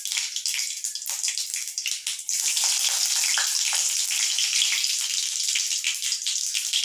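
Mustard seeds and curry leaves sizzling and crackling in hot oil in a kadai for a tempering; the sizzle grows louder about two seconds in.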